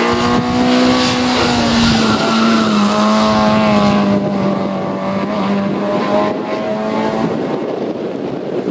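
Peugeot 205 N1300 race car's small four-cylinder engine running hard at high revs as the car passes and pulls away uphill. The engine note drops slowly in pitch and fades out about seven seconds in, leaving a rough rushing noise.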